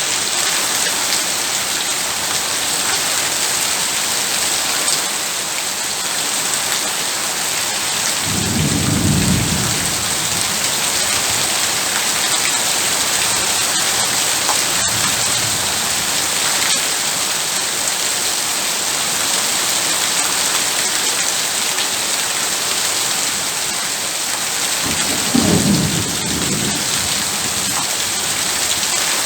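Heavy rain falling steadily, with a low rumble of thunder about eight seconds in and another about twenty-five seconds in.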